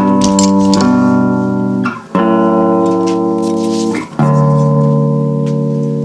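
Cigar box bass guitar played as background music: three slow plucked notes about two seconds apart, each left to ring, the last one fading away.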